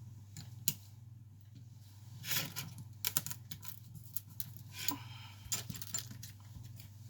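Scattered small clicks, taps and brief scrapes of hand tools and phone parts being handled during an iPhone battery replacement, over a steady low electrical hum.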